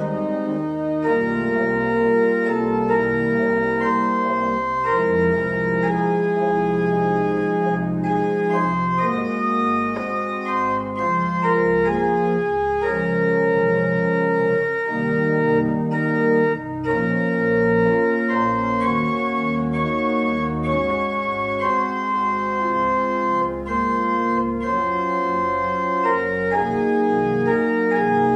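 Church pipe organ playing slow, sustained chords, the notes held and changing every second or two.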